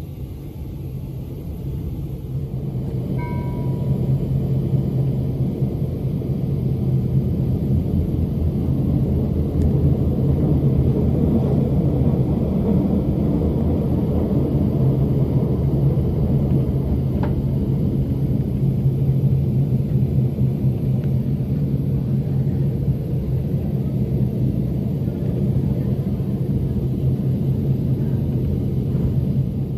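Steady rumble of the MOB GoldenPass Panoramic train running, heard from inside the passenger car. It gets louder over the first few seconds, then holds steady. A short high beep sounds about three seconds in.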